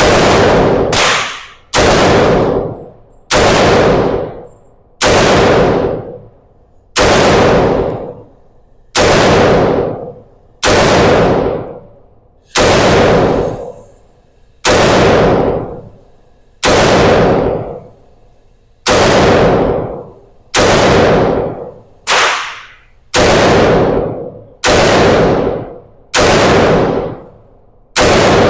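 Gunshots fired one at a time at a steady slow pace, about eighteen shots roughly one every second and a half, each followed by a fading echo.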